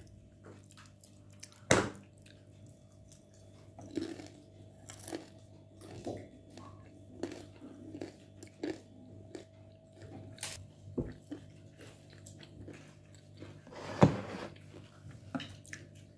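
A person chewing and biting into a crisp fried roll: irregular crunches and mouth clicks, with two louder bites, one about two seconds in and one near the end. A steady low hum runs underneath.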